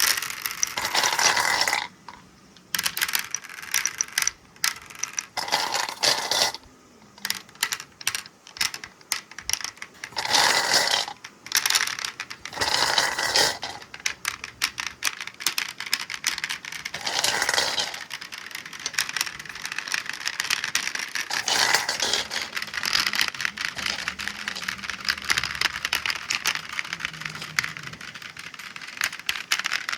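Marbles rolling and clicking down a marble run's stainless steel ramps. The clatter comes in separate runs during the first half, then becomes a continuous, dense rattle of many marbles from about halfway.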